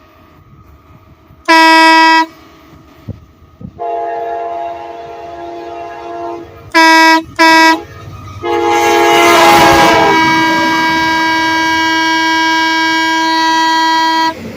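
A single-note horn blasts once, then a locomotive's Nathan K5LA five-chime air horn answers with a chord. Two more short single-note blasts follow, and the K5LA sounds a long chord of about six seconds while the train's rumble swells briefly near the middle.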